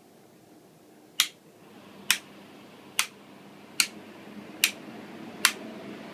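Six sharp switch clicks, a little under a second apart, as ventilation fans are switched on one after another; the whir of the fans builds up steadily behind the clicks.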